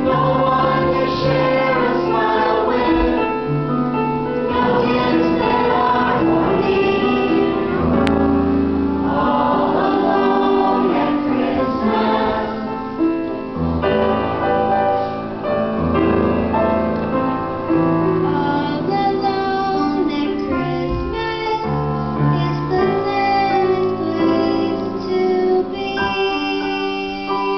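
Children singing a song with piano accompaniment.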